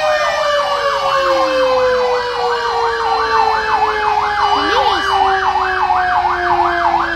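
Fire truck siren in a fast warble, rising and falling about two and a half times a second, over a steady tone that slides slowly down in pitch. The warble cuts off abruptly near the end.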